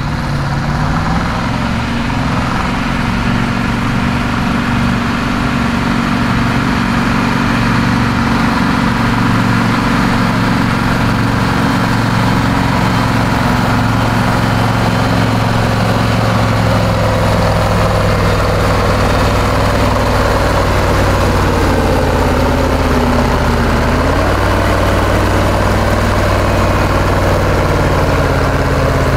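Diesel engine of a red International Harvester farm tractor working under heavy load as it pulls a weight-transfer sled. It runs loud and steady, and its pitch sags and picks back up about three quarters of the way through.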